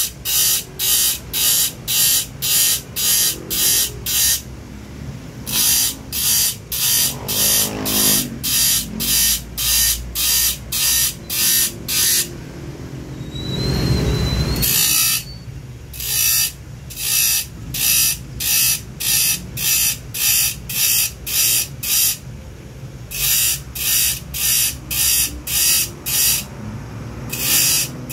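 A grinder's abrasive disc biting into the steel teeth of a hand saw in quick, short rasping strokes, about three a second, each stroke grinding one tooth as the saw is sharpened. The strokes come in runs broken by short pauses while the blade is moved along, with the grinder's motor running in between.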